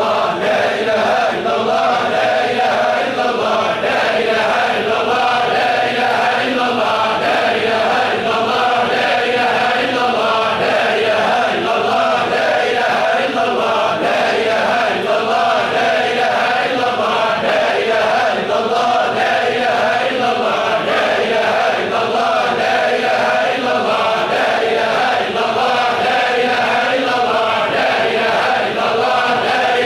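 A congregation of men chanting Tijani Sufi dhikr in unison, one short phrase repeated over and over in a steady rhythm.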